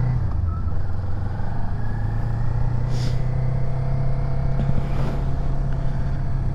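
Steady low engine rumble with a strong hum, faint higher tones that slowly rise, and a brief hiss about three seconds in.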